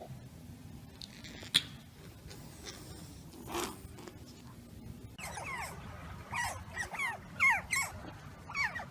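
An animal giving a quick run of short, high whines or squeaks, each one falling in pitch, starting about five seconds in after a few seconds of low background hum.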